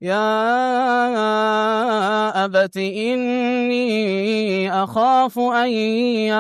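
A man's unaccompanied Quran recitation in the melodic maqam Nahawand. He draws out long, ornamented sung notes, with brief breaths about three and five seconds in.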